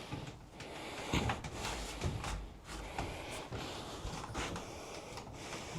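Scattered light knocks and rustling, the handling noise of someone moving about and working.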